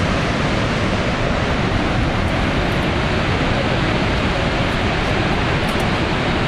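Niagara Falls: the steady rush of a massive waterfall, a loud, dense, unbroken noise.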